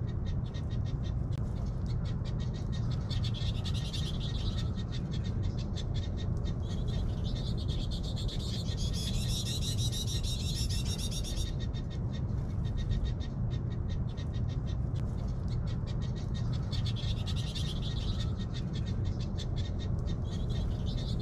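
Outdoor ambience: small birds chattering in rapid high trills that come and go, strongest about ten seconds in, over a steady low rumble.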